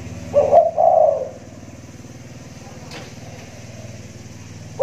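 Spotted dove (tekukur) cooing: one deep two-part coo phrase about a second long near the start, with the next phrase just beginning at the very end. A steady low hum runs underneath.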